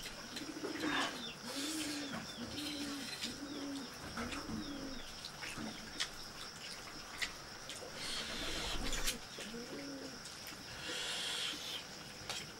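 A dove cooing in a repeated series of low coos, about one a second, breaking off for a couple of seconds before a last pair. Over it come soft slurps of noodles and a few sharp clicks of forks on metal plates.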